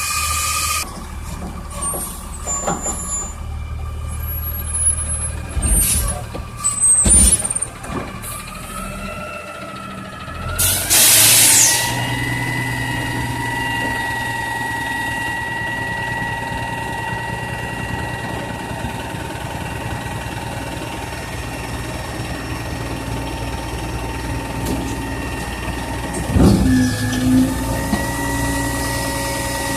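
Garbage truck working a collection: the engine runs while a few clanks and bangs sound early on. A loud burst of air-brake hiss comes about a third of the way in, followed by a long steady whine and more clanks near the end.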